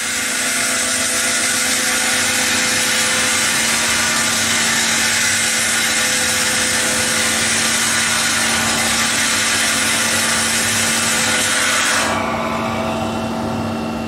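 Echidna D4HS-W excavator-mounted concrete saw, its water-cooled 1.4 m diamond blade cutting through pre-stressed concrete and its steel reinforcement: a steady, loud grinding hiss with a constant hum beneath. About twelve seconds in, the high hiss drops away and a lower, quieter running sound goes on.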